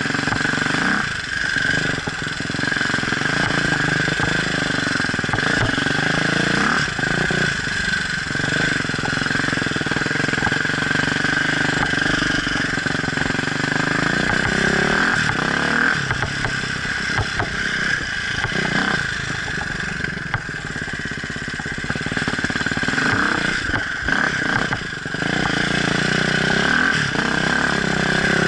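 Off-road enduro motorcycle engine running as it is ridden, revving up and easing off again and again, with several short drops in engine note.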